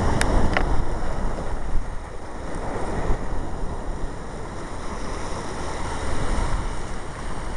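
Wind buffeting the camera microphone: a steady rushing rumble with two faint clicks in the first second.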